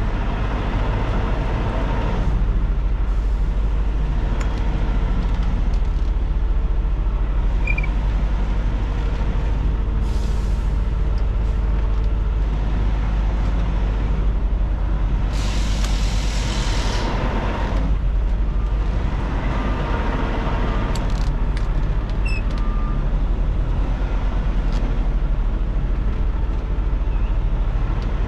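Diesel engine of a Peterbilt 579 semi-truck running at low speed, heard from inside the cab as a steady deep rumble. Two bursts of air hiss come through, about ten seconds in and again around sixteen seconds, typical of the truck's air brakes.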